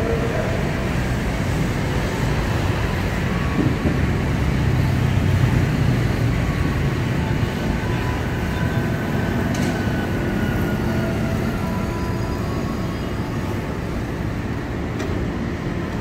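KRL electric commuter train pulling into the platform and slowing to a stop: a steady low rumble of wheels on rail, with a faint whine that drops slightly in pitch as it slows.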